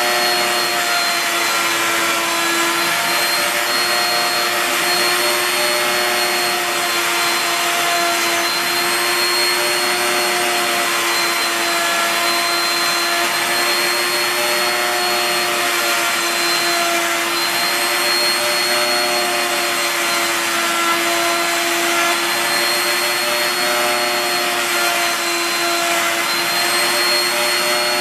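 Router motor on a home-built CNC router running at high speed as its bit carves a pine board, with a shop vac drawing dust through a hose at the cutter; a steady high whine over a rushing hiss, its pitch wavering slightly as the cut goes on.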